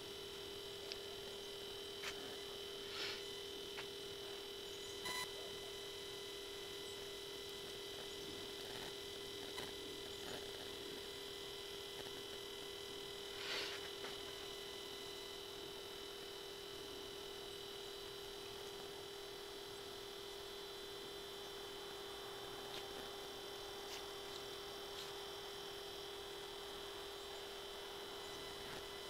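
A steady pure-tone hum with a higher whine over it, unchanging throughout, with a few faint clicks and taps about 2, 3, 5 and 13 seconds in.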